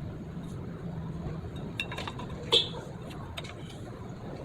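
Small steel drum-brake parts clinking against each other and the brake assembly as a part is fitted back in by hand: a few light clicks, the loudest with a short metallic ring about two and a half seconds in.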